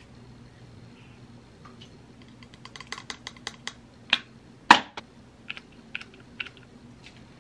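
A small plastic pump bottle of skincare product being handled and pumped. A quick run of light plastic clicks comes first. Two sharper pump clicks follow about four and five seconds in, the second the loudest, then a few lighter clicks.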